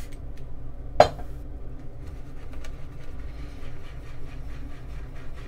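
Boar-bristle shaving brush swirling and tapping in a lather bowl, with one sharp clink about a second in followed by many faint small ticks and swishes. Little lather is building: the brush has been underloaded with soap.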